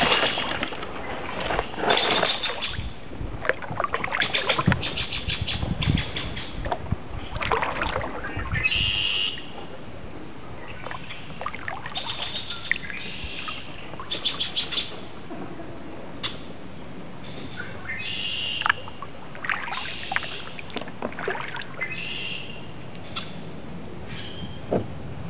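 Kayak paddle strokes splashing and dripping through the first several seconds. After that it is quieter, and birds chirp in short, quick trills.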